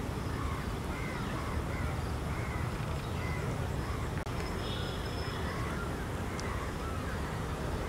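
Outdoor ambience of birds calling repeatedly, short arched calls like crows cawing, over a steady low rumble. A single sharp knock comes about four seconds in.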